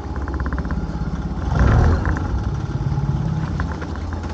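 Small boat's outboard motor running steadily. About a second and a half in there is a brief, louder rush of noise.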